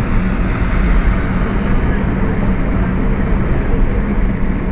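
Steady engine and road noise of a vehicle on the move, with a constant low hum.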